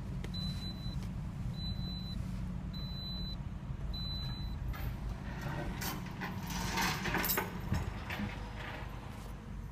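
A vehicle engine idling with a steady low rumble, while a high electronic beep sounds four times about a second apart and then stops; a louder rustling noise comes around six to seven seconds in.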